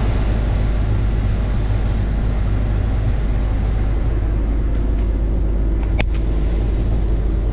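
Case IH combine running steadily while harvesting soybeans, a deep engine drone with machinery noise as heard inside the cab. One sharp click about six seconds in.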